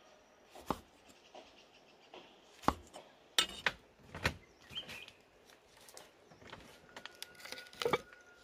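Scattered knocks and clicks: a cleaver cutting tomato on a wooden chopping board, then a wood fire crackling, with a clatter near the end as a black pot is set down over the fire on the hearth stones.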